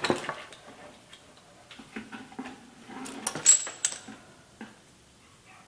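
Small metal parts and cable clicking and clinking as they are handled during a bike build, with a few sharper ringing metallic clinks about three and a half seconds in.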